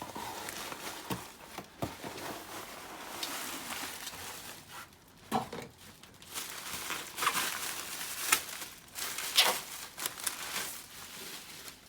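Packing material crinkling and rustling as a parcel is unpacked by hand, with scattered light clicks and knocks.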